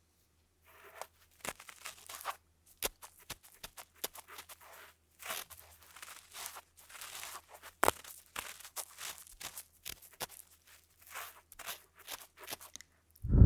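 Ear-cleaning sounds on a 3Dio binaural microphone: irregular scratchy crackles and sharp clicks as a tool scrapes and rubs in the microphone's ear. A loud, deeper sound starts at the very end.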